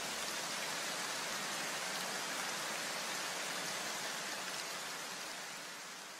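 A steady, even hiss of noise like rain, with no tune or beat, fading out from about two-thirds of the way through.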